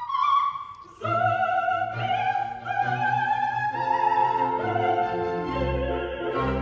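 Opera singer with strong vibrato and orchestra, the voice coming in suddenly about a second in after a quieter melodic line, with sustained strings underneath.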